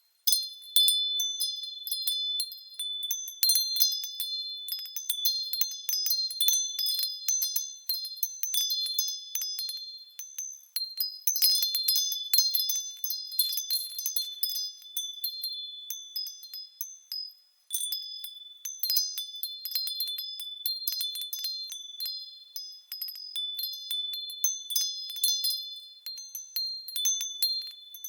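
Japanese furin wind chime swinging in the breeze, its clapper striking over and over at an irregular pace, each strike a high, bright ring with overtones. The ringing briefly dies away about 17 seconds in, then picks up again.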